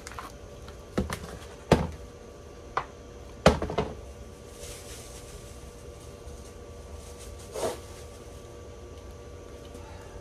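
Shoe stepping on rain-soaked, crumbled Sahara dry floral foam, giving a few sharp crunches in the first four seconds and one more later on.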